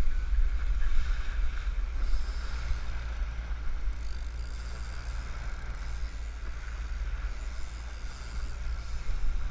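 Wind buffeting the microphone over the steady drone of twin Suzuki outboard motors pushing the boat along, with water rushing in the wake.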